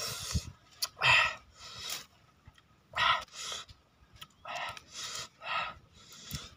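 Breathy panting: a run of short, hissy breaths, about one to two a second, with brief pauses between groups.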